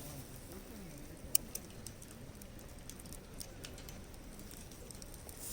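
Wood fire in a fire-pit stand crackling: scattered sharp pops and clicks, one louder pop about a second in.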